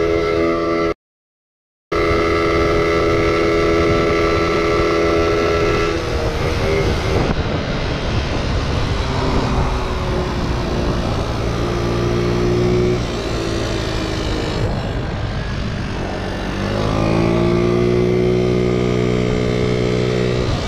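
Small motor scooter engine running as it is ridden, with road and wind noise. The pitch rises and then holds about seventeen seconds in as it accelerates. The sound cuts out completely for about a second near the start.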